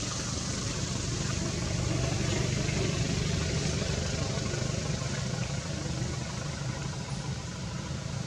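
A steady low engine drone with a hiss over it, swelling slightly a couple of seconds in.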